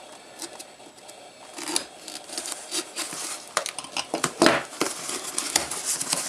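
Cardboard shipping box being opened and its packing handled: rustling, crinkling and tearing with scattered clicks and scrapes, sparse at first and busier from about a second and a half in.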